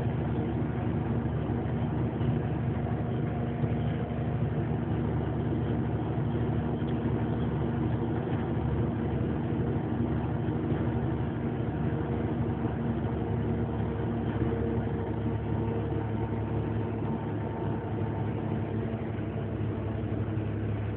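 Heavy truck's 480-horsepower diesel engine pulling steadily up a long grade under a 25-tonne load, heard from inside the cab as a constant deep drone mixed with road noise.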